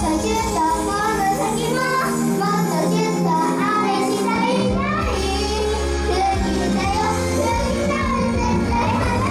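Pop song sung by young girls over music. The bass drops out for a few seconds about a quarter of the way in, then comes back.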